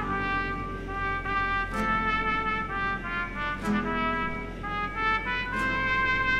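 Background music: a trumpet-led brass melody of held notes, with a sharp crash about every two seconds.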